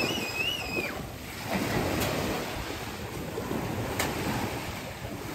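Small surf washing in on a sandy beach, with splashing as children wade through the shallows and wind on the microphone. A child's high, held squeal lasts about the first second.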